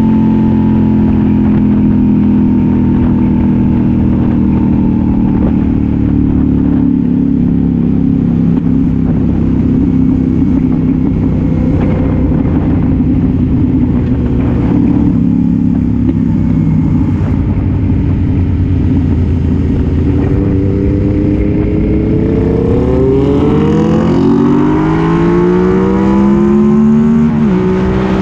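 Motorcycle engine with an aftermarket exhaust, recorded on board while riding: a steady engine note that slowly sags in pitch, then about three-quarters of the way through the revs climb steeply and drop sharply at a gear change near the end.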